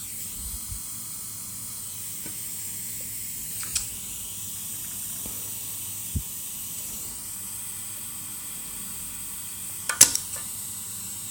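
Soft, steady hiss while solder is extracted from a microswitch's pins on the mouse's circuit board, with a couple of small ticks and one sharp click near the end.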